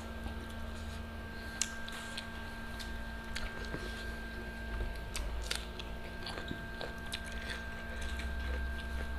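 Close-up eating sounds of grilled chicken being bitten and chewed, with scattered short, sharp wet clicks, over a steady low hum.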